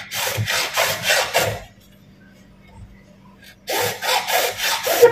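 Hand tool scraping back and forth on PVC pipe in quick, even strokes, about three a second. One run of about five strokes comes first, then a pause of about two seconds, then a second run of about five.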